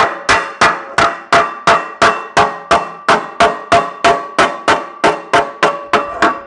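Ball-peen hammer tapping dents out of a sheet-metal cover, about three quick even strikes a second, each with a short metallic ring.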